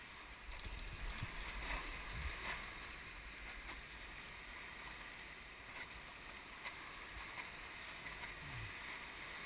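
Whitewater rapids rushing around an inflatable raft: a steady hiss of broken water, a little louder about one to three seconds in, over a low rumble.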